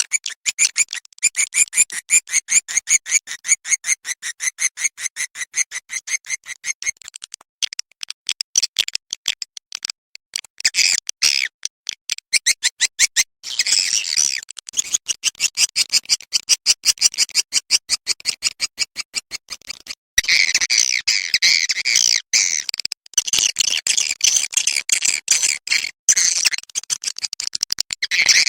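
Swiftlet calls: long runs of fast, sharp chattering chirps, many a second, broken by brief pauses a few times. A swiftlet lure-call track of the kind played from swiftlet houses to draw the birds in.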